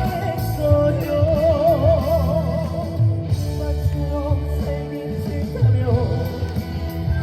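Trot music playing loudly with a steady beat and bass under a lead melody that wavers in a wide vibrato.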